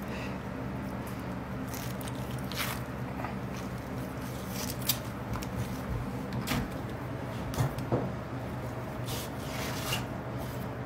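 Fillet knife cutting and scraping through a fish on a plastic cutting board: scattered short scrapes and taps over a steady low hum.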